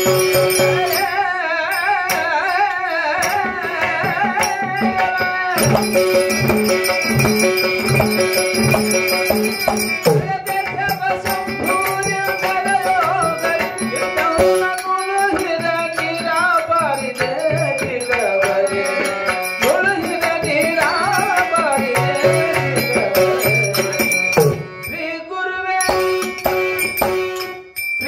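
Devotional bhajan music: a man singing a wavering melody through a microphone, accompanied by tabla strokes and a harmonium's held chords. The singing pauses briefly near the end while the accompaniment carries on.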